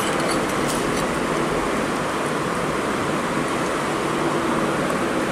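Steady rushing background noise of a room, even throughout with no distinct events.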